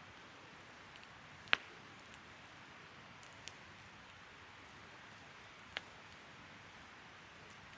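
Wood fire burning with a soft, steady hiss, broken by three sharp crackling pops of burning wood, the loudest about one and a half seconds in.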